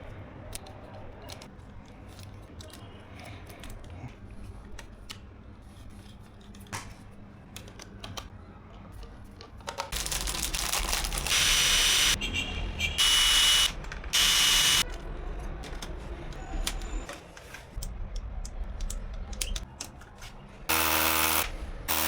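Light clicks and handling of small parts, then a small electric power tool run in short bursts of about a second each, five times in the second half.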